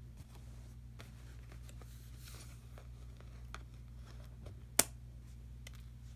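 Hands handling a cardboard and plastic product package: faint rustling and scattered small clicks, with one sharp click about five seconds in, over a steady low hum.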